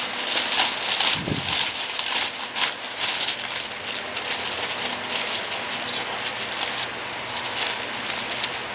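Meat sizzling and crackling on a backyard grill: a steady hiss with many fine pops, busiest in the first few seconds.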